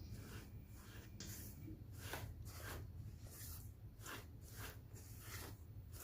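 Hands kneading and working sticky bread dough, giving faint, soft, rhythmic squishing strokes about two a second.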